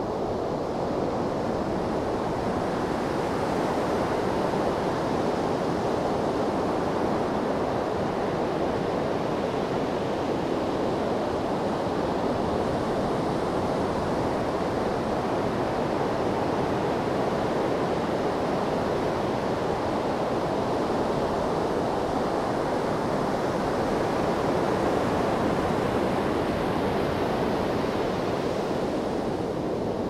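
Gentle ocean waves: a steady rush of surf that swells slightly a few seconds in and again near the end.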